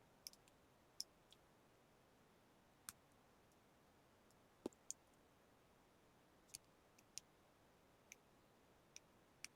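Faint, sharp metallic clicks at irregular intervals, about a dozen: metal tweezers tapping and slipping against a wristwatch case and band while trying to work the band off.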